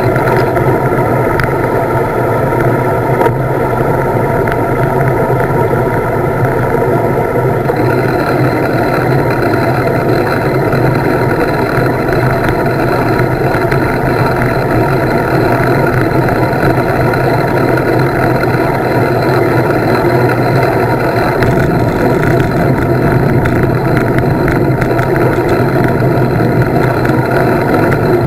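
Loud, steady wind noise buffeting a handlebar-mounted camera microphone on a road bike rolling fast downhill, mixed with tyre and road noise.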